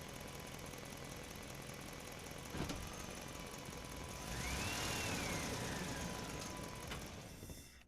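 A vehicle engine sound effect running steadily, with a sharp click about two and a half seconds in. It grows louder midway, when a whistling tone rises and then falls away, and fades out near the end.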